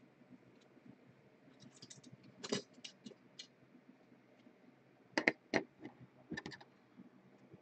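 Trading cards and plastic card holders being handled on a tabletop: scattered sharp clicks and light scrapes, a cluster about two and a half seconds in and a louder few between five and six and a half seconds.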